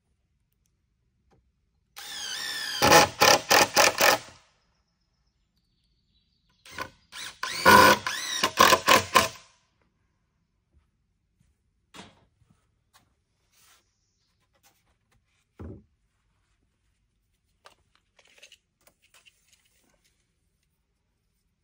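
Cordless drill driving screws into wooden framing lumber in two bursts of a few seconds each, the motor whine rising as each burst starts. Later there are a few light knocks and one short thump.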